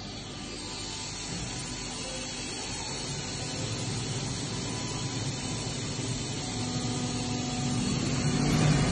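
Saacke HGI 4 CNC hob sharpening machine running with a steady hissing hum and a faint steady whine, growing gradually louder, as it gets under way with its touch-probing cycle.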